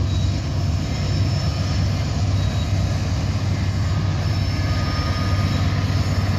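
Freight train rolling slowly past, a steady low rumble of its cars on the rails.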